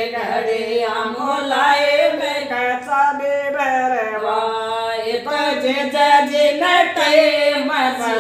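Women singing a Rajasthani folk song unaccompanied, in long held, gliding melodic notes.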